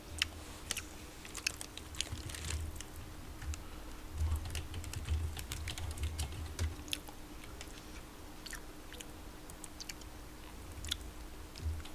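Irregular light clicks and taps close to the microphone, with a few soft low thumps in the middle, over a faint steady hum.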